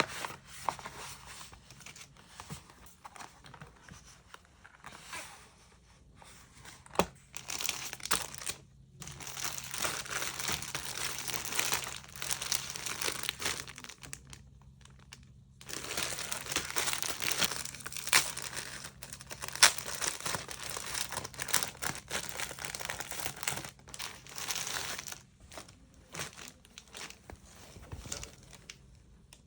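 Packaging crinkling and rustling as merchandise is unwrapped by hand, in long stretches broken by two short pauses, with a few sharp clicks.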